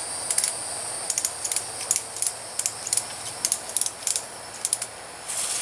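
Irregular sharp clicks and small rattles from a hammock's suspension strap and hardware being worked and fastened at a tree trunk, over a steady high insect drone.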